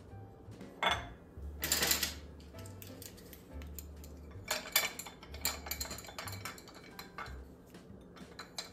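Small metal spoons clinking against a ceramic sugar bowl and tray as they are set in place, with a brief rustle about two seconds in and scattered light clicks after.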